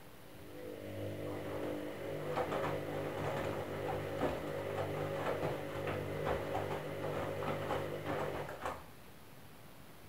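Candy front-loading washing machine's drum motor turning the drum in one wash tumble, a steady hum with the down jacket load knocking and thudding as it tumbles. It runs for about eight seconds and then stops abruptly.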